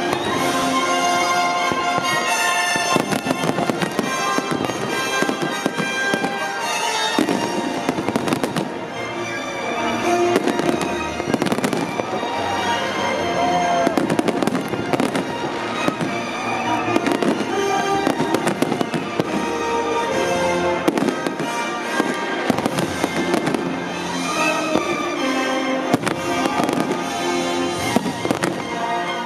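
Fireworks display: aerial shells bursting in quick succession, many sharp bangs over music.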